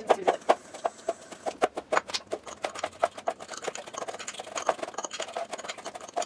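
Chef's knife chopping on a plastic cutting board: quick, irregular taps, several a second, as food is minced.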